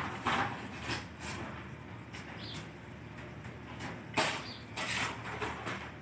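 Cardboard pizza box scraping and sliding on wet stone tiles as a gull pulls at it, in several short noisy bursts, the loudest about four seconds in.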